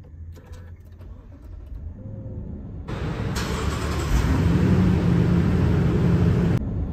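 Lexus LX570's 5.7-litre V8 starting up and running smoothly. Quiet for the first three seconds, then the engine sound comes in, grows louder about a second later, holds steady, and drops off near the end.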